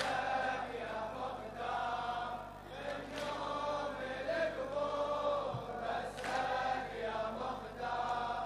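Crowd of men chanting a Shia latmiya mourning refrain in unison, in drawn-out phrases that break every second or so: the congregation's sung response between the reciter's lines.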